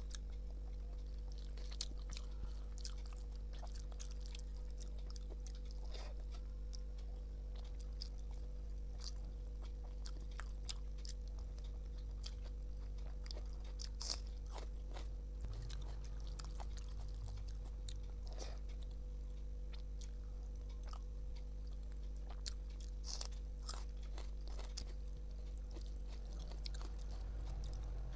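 Close-miked chewing and biting of a hand-eaten meal of rice, dal and jackfruit curry: soft wet chewing broken by scattered crisp crunches, a loud one about halfway through from a bite of raw onion. A steady low electrical hum runs underneath.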